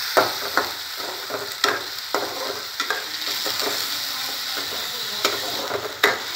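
Rice grains frying in ghee in a metal kadai, sizzling steadily, while a metal spoon stirs them, scraping and clinking against the pan at irregular moments, with one louder clink near the end.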